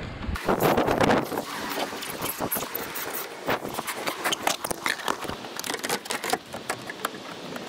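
Plastic scuttle panel below the windscreen being handled and pressed into place, giving an irregular run of plastic clicks, knocks and scraping.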